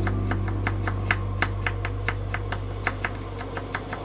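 Quick, even clicks or taps, about five a second, over a low steady tone that slowly fades.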